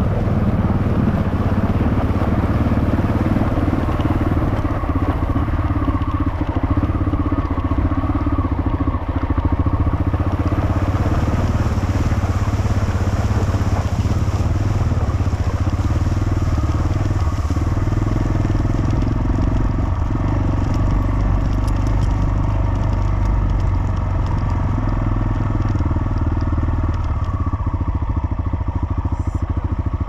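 Adventure motorcycle engine running at low speed, its note shifting a few times with the throttle, over the crunch of tyres rolling on stones and gravel.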